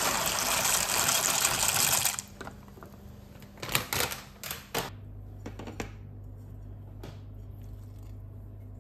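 Water running loudly, which stops about two seconds in, followed by a few clattering knocks and then a steady low hum.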